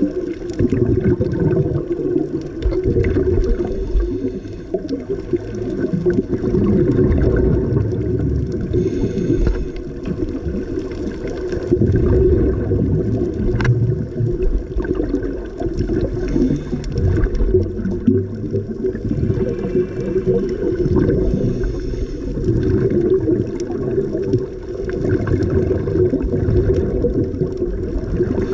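Muffled underwater sound of scuba divers' exhaled air bubbles: a steady low gurgling rumble, with a brighter burst of bubbling every several seconds.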